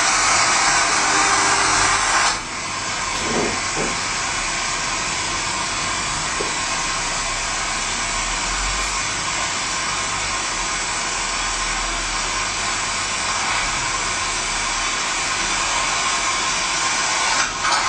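Steady, loud hissing rush of an oil well blowout: oil and gas jetting uncontrolled out of the well at very high pressure, heard from a video played over a classroom TV's speakers. The rush eases slightly about two seconds in and then holds steady.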